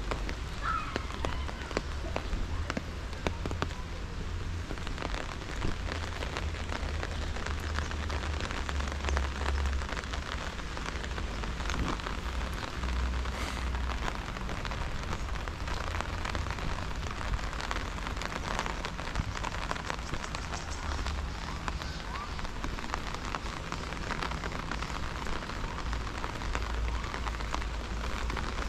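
Steady rain falling, a dense patter of drops, over a low rumble that swells now and then.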